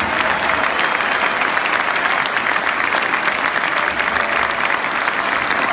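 Stadium crowd applauding after a football match: dense, steady clapping from many hands, with the players on the pitch applauding the fans back.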